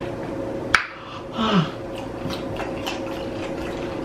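Eating sounds at a table with plastic forks and plastic takeout containers: a sharp click about a second in, a short falling 'mm' from an eater, then faint scattered clicks of utensils and chewing over a steady faint background hum.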